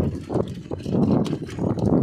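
Choppy water slapping and knocking against the hull of a small boat, in surges about once a second, with wind on the microphone.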